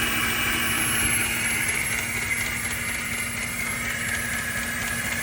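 2005 Toyota Tacoma engine idling with a rough idle, with a steady high whine over it that drops a little in pitch partway through.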